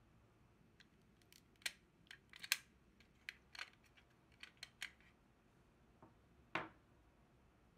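A string of small, sharp plastic clicks and taps as the AA battery is worked out of the battery compartment of a Logitech Pebble M350 mouse. About six and a half seconds in there is a single duller knock as it is set down on the table.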